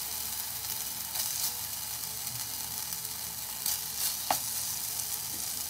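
Hot oil and chilli-garlic mixture frying in a pan under freshly added boiled rice: a steady sizzle, with a few light clicks.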